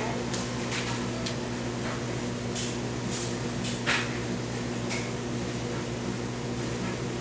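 Steady low electrical hum with a few short, soft clicks scattered through it; the loudest click comes about four seconds in.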